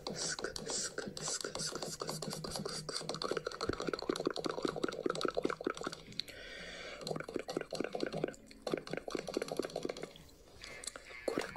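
Rapid mouth sounds made close to the microphone: a dense run of quick clicks and smacks, with a short pause near the end.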